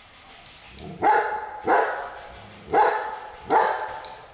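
A dog barking four times, the barks spaced about a second apart.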